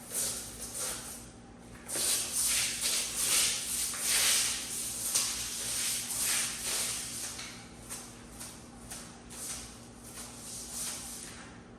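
Repeated brushing strokes against a hard surface, a few a second, loudest in the middle stretch and tapering off near the end.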